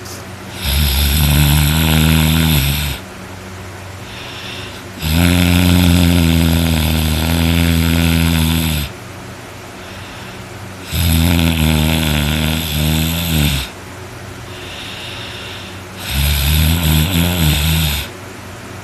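A sleeping man snoring very loudly: four long snores, each lasting two to four seconds, repeating about every five seconds, with quieter breathing between.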